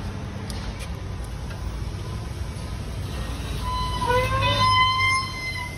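Fruit press machine running with a steady low hum. About four seconds in, a high-pitched tone with overtones sounds for about a second and a half.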